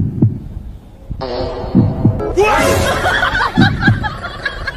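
Paired low thumps, like a heartbeat, picked up by a karaoke microphone held against a small fluffy dog's body and played back through the microphone's built-in speaker. The pairs come about every two seconds. Warbling pitched sounds join in from about a second in.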